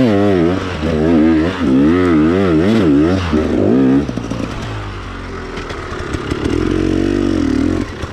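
KTM enduro dirt bike's engine revving hard in rapid up-and-down surges on a steep hill climb, then dropping to a quieter, low steady running about four seconds in as the bike comes to a stop on the slope.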